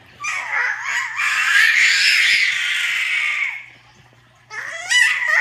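A baby's high-pitched squealing vocal noises: one long squeal over the first few seconds, then a fresh run of gliding squeals near the end.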